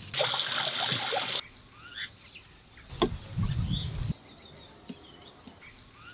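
Small birds chirping with short rising calls throughout, and a steady high insect buzz from about three seconds in. Near the start there is a second-long burst of hiss, and about three seconds in a second-long low rumbling noise.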